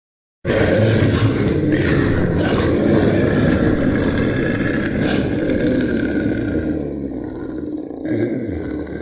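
A large animal's loud, drawn-out vocalisation, starting abruptly after a brief silence and easing off slightly near the end.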